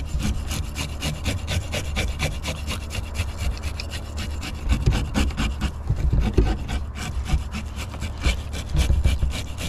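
Scales being scraped off a salmon's skin in quick, repeated strokes, several a second, with a rasping sound.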